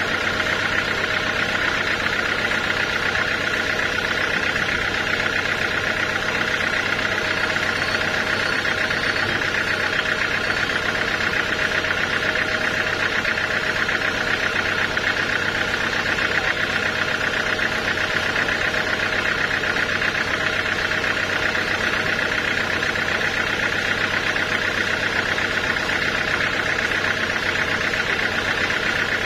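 Sawmill machinery running steadily, a band saw mill's engine and blade, with an even drone and a high whine that stay constant throughout.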